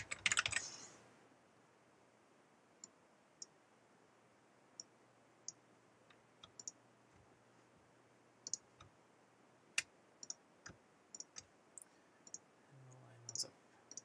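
Computer keyboard typing in a quick run for about the first second, then single faint clicks scattered every second or so, typical of a computer mouse being clicked.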